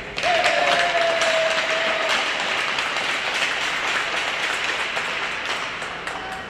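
Hockey spectators clapping and cheering, breaking out suddenly and tapering off over several seconds. One held call or tone sounds over the first two seconds.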